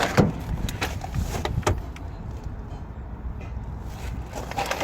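Several sharp clicks and knocks from parts of a car interior being handled, then a steady low rumble.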